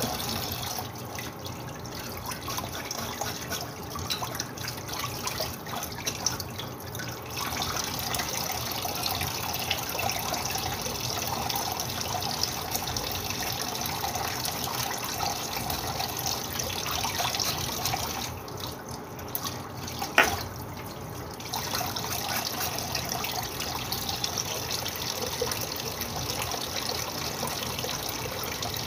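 Kitchen tap running into a stainless steel sink while items are rinsed by hand under the stream. The water sound drops for a few seconds past the middle, and there is one sharp knock about twenty seconds in.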